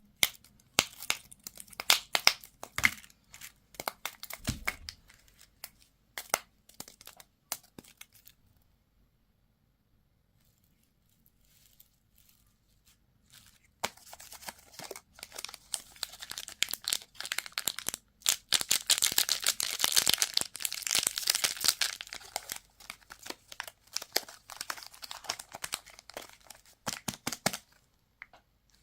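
Wrappers crinkling and tearing as candy and toy packaging is unwrapped, with dense crackling handling noise. It stops for about five seconds in the middle, then comes back busier and louder.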